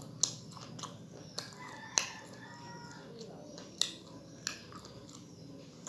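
A person eating close to the microphone: chewing and lip smacks, with about five sharp clicks spread through.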